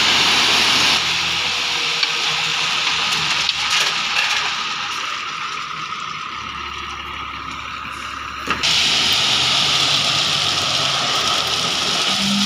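A tipper truck dumping a load of crushed stone: the stones pour and slide off the raised bed with a steady rushing hiss over the truck's running engine. The pour softens for a few seconds in the middle and comes back louder near the end.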